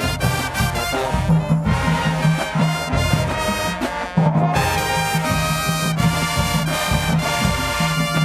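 High school marching band playing: brass (trumpets and trombones) over drums, with a steady beat and a repeating low bass note, in a Latin-flavoured groove.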